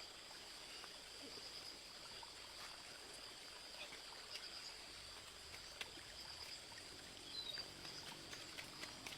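Faint stream water trickling, with a steady high-pitched insect chirr over it and a few small clicks.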